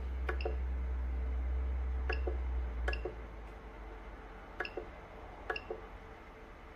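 Z-axis stepper motors of a CR-10 S5 3D printer running with a low hum as the axis is raised, stopping about three seconds in. Over it come short paired clicks, several times, from the control box's rotary knob being turned and pressed.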